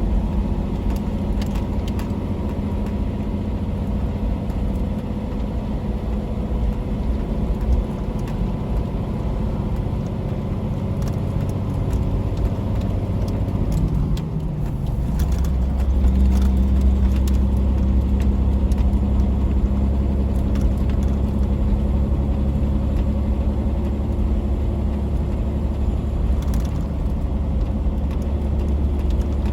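Tractor-trailer truck's engine running steadily while driving. About halfway through the engine note dips briefly, then comes back steadier and louder.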